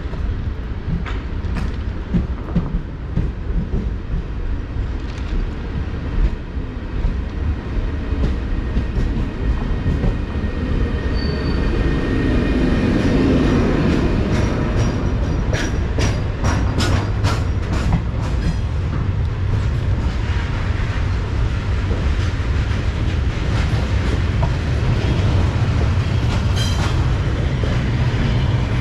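Railjet passenger train rolling slowly away from a station, a steady low rumble of wheels on rail growing a little louder as it gathers speed. A brief high wheel squeal comes about eleven seconds in, and there are bunches of sharp clicks as the wheels run over rail joints and points, most in the middle and near the end.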